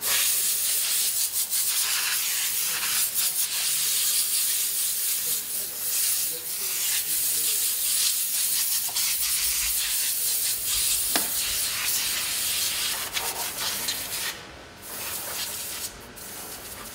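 Car-repair workshop noise: a loud, steady hiss with rubbing and scraping and scattered clicks and knocks, dipping briefly about fourteen seconds in.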